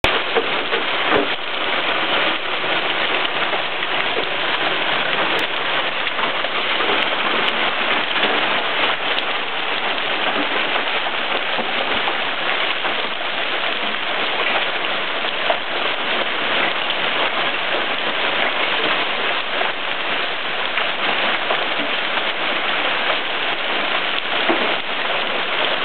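Heavy rain mixed with hail pelting down steadily: a dense, even hiss with a few sharper taps scattered through it.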